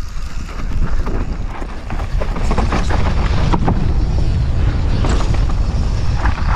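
Downhill mountain bike rolling down a rocky dirt trail: a loud, steady low rumble of wind on the microphone and tyres on dirt, with the bike's chain and suspension rattling and knocking over stones.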